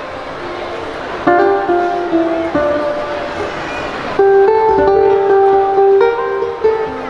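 Ukulele playing a plucked melody with chords, new phrases starting about a second in and again about four seconds in.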